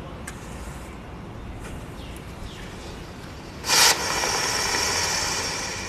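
Green colour smoke fountain firework catching with a sudden whoosh about four seconds in, then hissing steadily as it pours out smoke, the hiss slowly fading.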